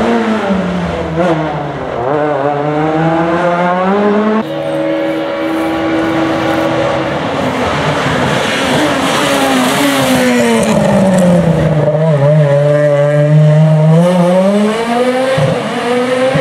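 Rally car engines driven hard on a special stage, one car after another: the pitch drops as they brake and change down, then climbs again as they accelerate away. The sound changes abruptly about four seconds in, from one car to the next.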